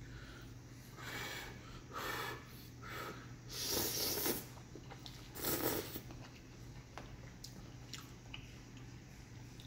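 Noodles being slurped off a fork in a series of noisy sucks, the longest and loudest about four seconds in, followed by quieter chewing with small wet clicks. A steady low hum runs underneath.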